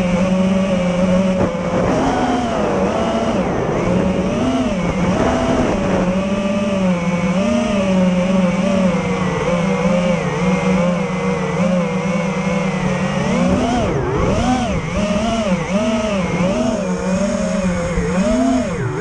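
FPV quadcopter's electric motors and propellers whining as it flies, the pitch holding steady for stretches and then swinging up and down with the throttle, swinging fastest over the last five seconds.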